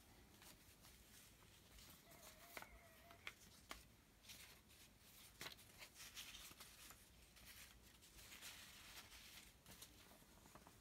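Near silence, with faint rustling of paper and light scattered taps as paper pieces are handled.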